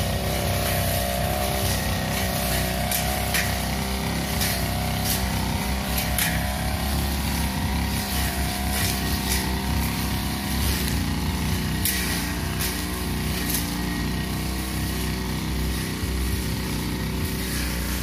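Backpack 328 two-stroke brush cutter running at high speed while its long 45 cm metal blade cuts through tall grass, the engine pitch wavering a little as it takes load. Occasional sharp ticks come through over the engine.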